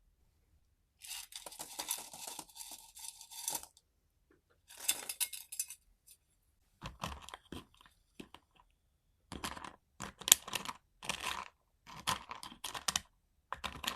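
Dried Chinese herbal medicine being made up by hand: dry crinkling and crunching in separate bursts, a longer stretch about a second in, then a run of short handfuls toward the end.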